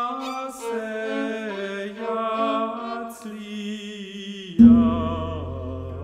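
Contemporary music with a chanting voice. About four and a half seconds in, a loud note is struck and a deep low tone rings on under it.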